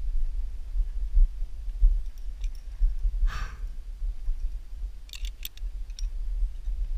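A few quick metal clicks about five seconds in, typical of carabiners on a quickdraw clinking as a climber clips a bolt. Under them is a steady low rumble on the body-mounted camera, with a short hiss near the middle.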